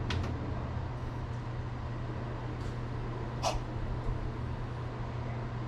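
Steady low fan hum, with a couple of quick clicks right at the start and short breathy noises about two and a half and three and a half seconds in.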